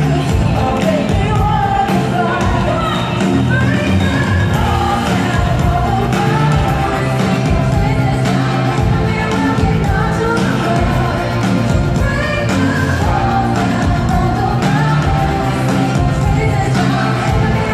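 Live worship band playing in a large hall, a woman singing the lead over full band, heard from the audience.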